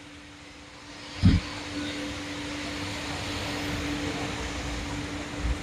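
Steady whir of many 3D printers running together, their fans and motors giving an even noise with a constant low hum. A single low thump about a second in.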